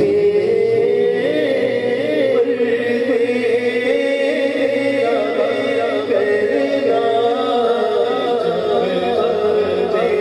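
Male naat reciter singing a slow, melismatic Urdu devotional verse without instruments, through a reverberant PA microphone. A second voice holds a low steady drone beneath the melody at the start and again near the end.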